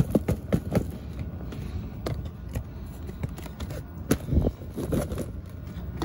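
Washing powder tipped and shaken out of a cardboard box into a washing machine drum, with the box scraping and knocking irregularly as it is handled.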